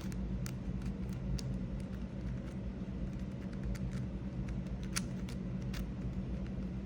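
A GAN 562 M 5x5 speedcube being turned by hand: irregular light clicks from the plastic layers turning, several a second, over a steady low hum.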